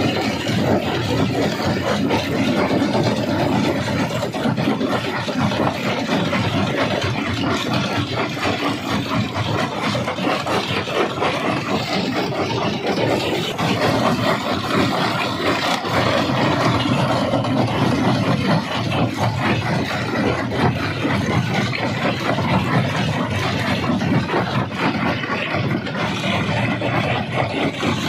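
Rock crusher running under load: a steady, dense mechanical rumble with constant crackling as stone is crushed, with no let-up.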